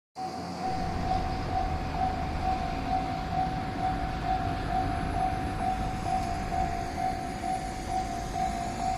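Japanese railway level-crossing alarm ringing, a single electronic ding repeated steadily a little over twice a second, over a low rumble.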